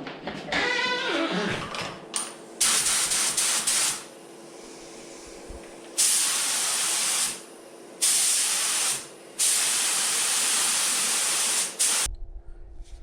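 Air spray gun, a budget low-volume low-pressure type, spraying thinners through to flush it out before use: four long bursts of loud hiss with fainter hissing between them.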